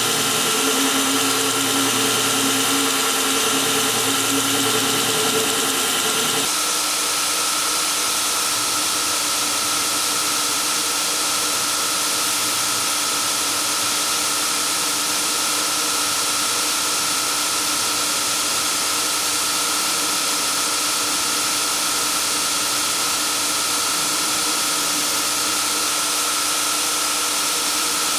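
Belt grinder running with a knife handle pressed against the abrasive belt over the contact wheel, grinding and shaping the handle: a steady whirring hiss with a steady whine. The lower hum drops away about six seconds in.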